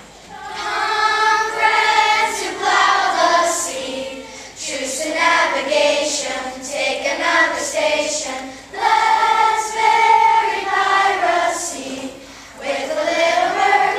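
Children's choir singing together, in phrases broken by short pauses about every four seconds.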